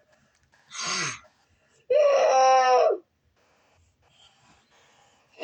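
A boy's voice making wordless noises: a short breathy grunt with a falling pitch, then about two seconds in a loud held wailing cry lasting about a second.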